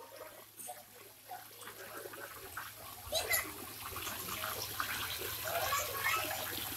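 Water splashing from a dense crowd of carp jostling at the surface for food, getting louder about three seconds in.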